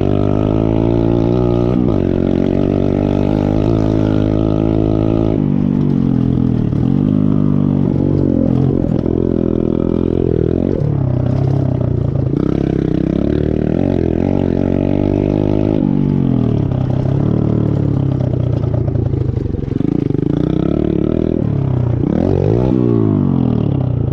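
Chinese pit bike's small single-cylinder four-stroke engine revving under riding, its pitch climbing and dropping again and again as the throttle opens and closes and gears change.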